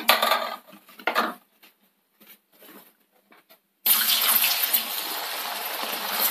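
A few short bursts of noise in the first second or so, then a sudden loud sizzle about four seconds in as raw tapioca slices are dropped into hot coconut oil, going on as a steady hiss of deep-frying.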